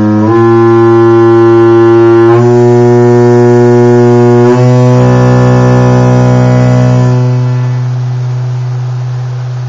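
Loudspeaker driving a Kundt's tube with a loud, low tone rich in overtones, shifting pitch in small steps a few times. About seven seconds in, the upper overtones drop away and the tone slowly fades. The tube is being driven near its lowest (n=1) resonance, where the beads inside churn into a thick moving wall.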